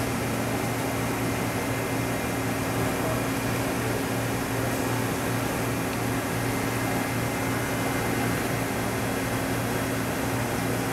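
Steady low hum with an even hiss, unchanging throughout, from a powered-up Mighty Viper PRW-5340 CNC bridge mill with its motors and pumps running.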